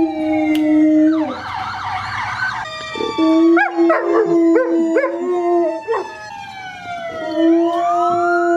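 Siberian husky howling in long, steady held notes with a few short breaks. Other dogs join in the middle with wavering, rising-and-falling howls.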